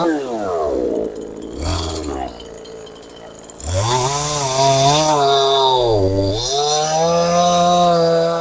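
Two-stroke chainsaw, a Stihl clone, dropping off the throttle toward idle at the start, then revved back up about three and a half seconds in and held at high revs, its pitch dipping briefly around six seconds in.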